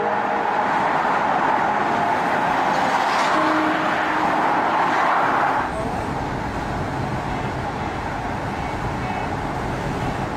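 Road noise inside a moving car's cabin: a steady rushing hiss that about halfway through drops to a lower, duller rumble.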